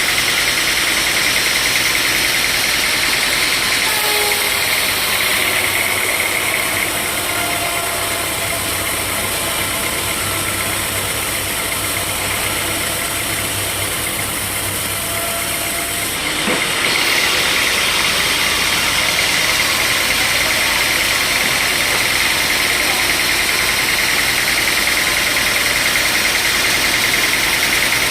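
Sawmill machinery running steadily with a high, constant whine. The sound drops and softens about five seconds in, then comes back to its first pitch and loudness at about sixteen seconds.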